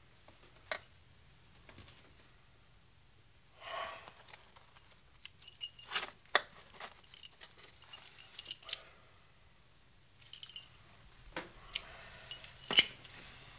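Scattered small clicks and light metallic clinks, some with a brief high ring after them, with a soft breathy sound about four seconds in.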